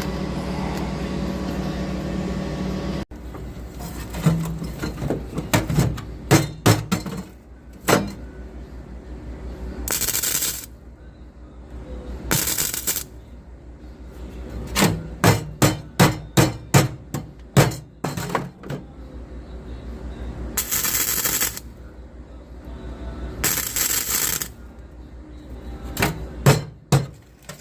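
Hammer blows on a sheet-metal floor patch in quick runs, broken by four bursts of about a second each of tack welding. A steady hum stops suddenly about three seconds in.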